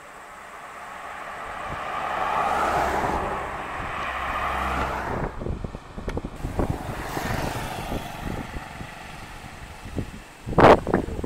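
A car driving past close by, its engine and tyre noise swelling and then fading. Later come scattered knocks and a loud short burst near the end.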